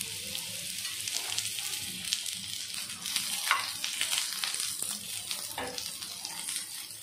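Diced carrots sizzling in hot oil on a dosa tawa, with a spatula scraping and tapping the pan now and then as they are stirred.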